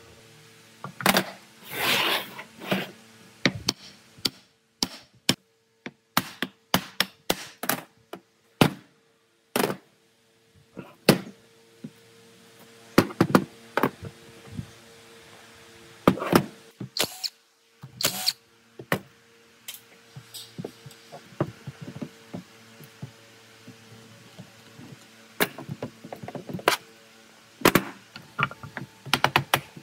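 Irregular knocks, taps and thuds of tool work, some strikes much louder than others and spaced unevenly. A steady low hum runs beneath them.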